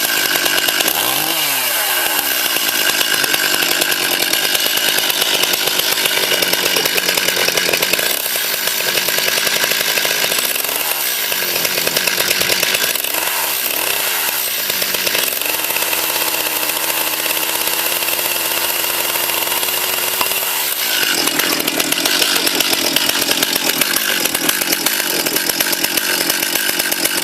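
Petrol chainsaw running continuously, its engine revved down and back up several times, with a steadier stretch at even speed around the middle.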